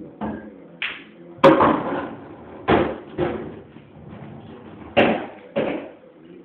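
Pool balls being played on a pool table: the cue striking the cue ball and balls clacking together, then further knocks as balls hit the cushions and drop into pockets. There are about seven sharp knocks in all at uneven spacing, the loudest about a second and a half in.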